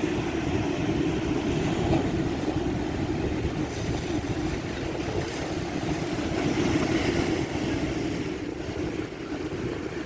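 Ocean surf at high tide: waves breaking and washing up the beach in a steady rush that swells and eases slightly.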